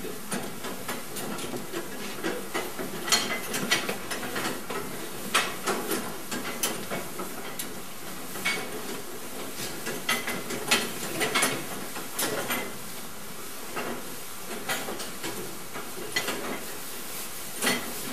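Irregular knocks and clatters over a steady hiss: goats shifting and bumping in a metal-railed race during ultrasound pregnancy scanning.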